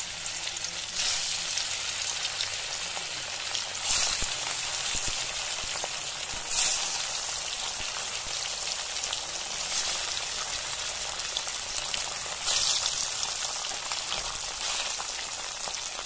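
Catla fish pieces sizzling in hot mustard oil in a kadai: a steady frying hiss that flares up loudly about five times, as each new piece goes into the oil.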